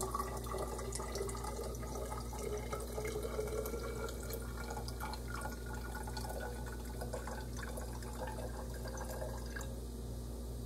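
Fine fizzing crackle of an Alka-Seltzer tablet reacting in vinegar in a glass beaker, the sodium bicarbonate giving off carbon dioxide. During the first half, vinegar trickles as it is measured into a glass graduated cylinder.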